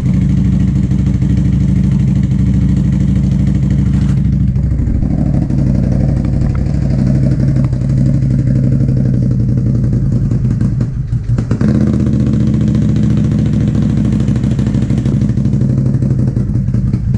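Can-Am ATV with an aftermarket pipe exhaust running hard while plowing snow, a steady engine note that changes pitch a little after four seconds in and drops briefly around eleven seconds before picking back up.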